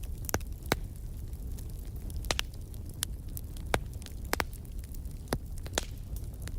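Wood fire in a fireplace crackling: about ten irregular sharp pops and snaps over a steady low rumble of the flames.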